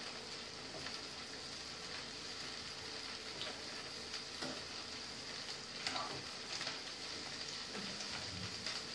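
Chopped flat beans (avarai) and onion sizzling steadily in hot oil in a frying pan, with a spoon stirring and scraping through them a few times.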